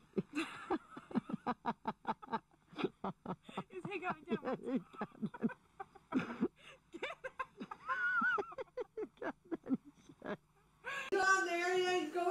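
A woman laughing hard in quick, repeated bursts, with a higher-pitched warbling voice about eight seconds in. Near the end, after a brief pause, a different voice starts speaking.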